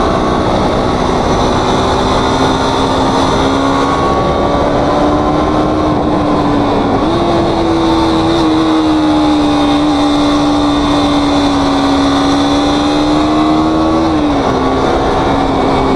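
2022 KTM RC 200's single-cylinder four-stroke engine running steadily while riding, heard from the saddle with wind rush. The engine note steps up slightly about seven seconds in and drops back about fourteen seconds in.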